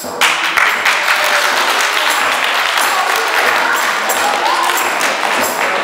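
Audience applauding: dense, steady clapping that starts suddenly and keeps on without a break.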